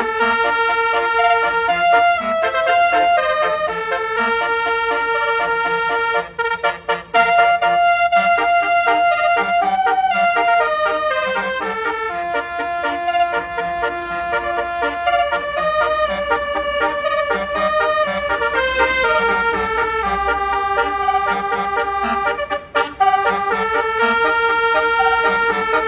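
A bus's basuri telolet horn, a multi-tone musical horn, playing a melody of held notes, several at once, that step up and down in pitch, with two short breaks.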